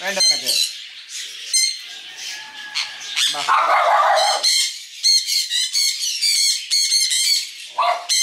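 Parrots squawking: quick, high, repeated squawks, with sun conures being syringe-fed through cage wire, and a deeper falling call at the start and again near the end.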